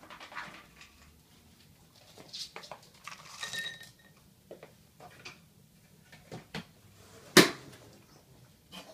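Scattered clinks and knocks of ceramic dog bowls being handled on a countertop, with one sharp, much louder knock about seven and a half seconds in.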